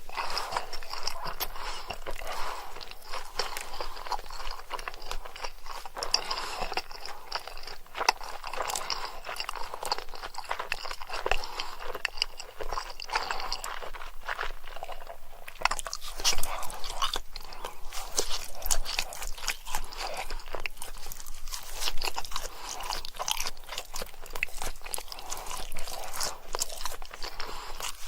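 Close-miked eating: crunchy food being bitten and chewed, with a dense run of crackling crunches and a brief lull about halfway through.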